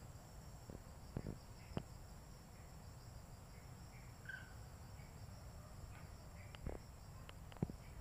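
Faint, steady high-pitched drone of insects, over a low rumble, with a few short clicks about a second in, near two seconds, and twice near the end.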